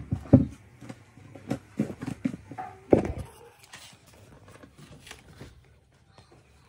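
Knocks, thumps and rustles of objects being handled and pushed aside in a small room, strongest in the first three seconds, then fading to faint fumbling.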